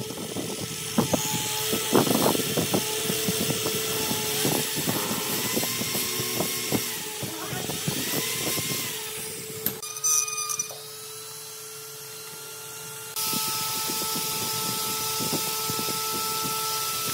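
Handheld electric drill running, its bit boring into a small wooden dowel, with irregular clicks and knocks as the bit cuts, for about the first ten seconds. After that it stops, and a steady noise comes in suddenly a few seconds later.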